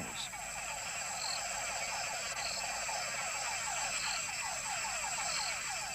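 Chorus of mud puddle (túngara) frogs: many males calling at once, each call a short falling whine, several a second and overlapping, with a steady high tone above them.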